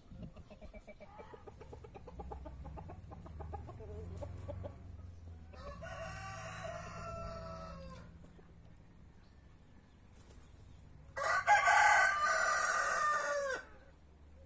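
Chickens clucking in quick short calls over the first few seconds, then roosters crowing twice: a softer crow about six seconds in and a loud one near the end.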